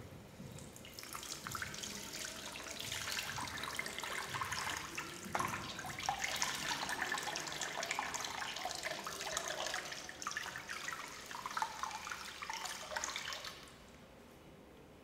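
Water tap running into a ceramic washbasin, the stream splashing as cupped hands scoop water from it. The flow starts about a second in and stops near the end.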